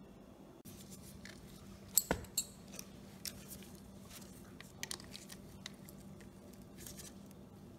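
Small metal clicks and clinks of a socket on an extension worked against a small-engine carburetor's float bowl, a few sharp ones close together about two seconds in and lighter ones after, over a faint steady hum.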